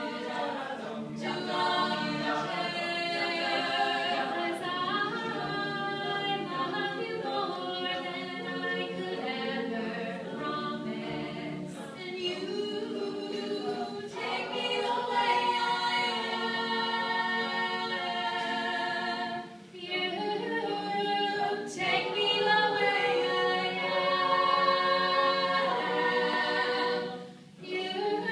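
Mixed-voice a cappella group singing, a woman singing lead into a microphone over sustained backing harmonies from the rest of the group. The singing breaks off briefly about two-thirds of the way through and again near the end.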